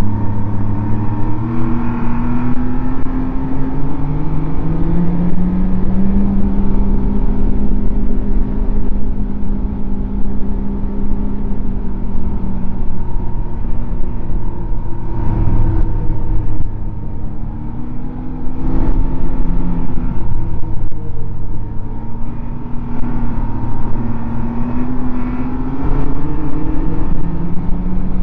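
Snowmobile engine running while riding a trail, its pitch rising and falling with the throttle, over a steady high whine. A couple of sharp knocks come about halfway through.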